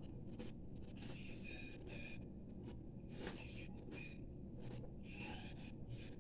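A person chewing a mouthful of ramen noodles with the mouth closed: faint, soft wet mouth sounds with a few small clicks, over a low steady hum.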